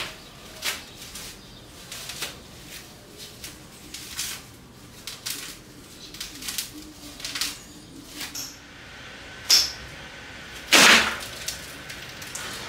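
Packaging being handled and pulled off during an unboxing: a string of small clicks, knocks and rustles, a sharp click about nine and a half seconds in, and a louder noisy sweep of about half a second near eleven seconds in.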